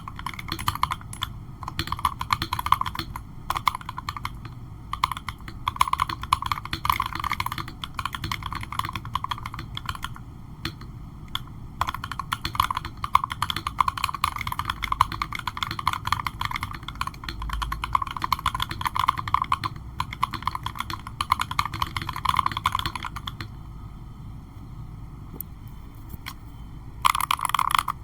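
Typing on an MK870 mechanical keyboard fitted with Ruben Tomcat switches: a fast, continuous clatter of keystrokes. It goes quiet for a few seconds near the end, then the typing starts again.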